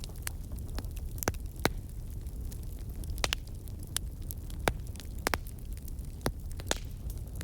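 Wood fire crackling: irregular sharp pops over a steady low rumble of burning.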